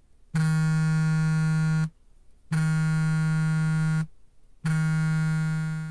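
Phone ringtone for an incoming video call: a low, buzzy, steady tone held about a second and a half, sounding three times with short gaps, the third fading out near the end.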